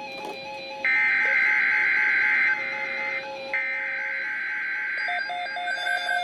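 Emergency Alert System SAME header: two bursts of two-tone digital data, each under two seconds long with about a second's gap between, signalling the start of a new alert. About five seconds in, a steadier electronic alert tone begins.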